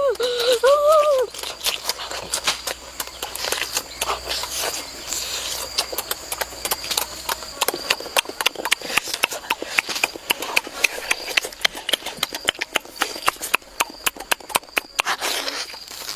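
Close-miked eating: a rapid, irregular run of crunching and smacking clicks from chewing.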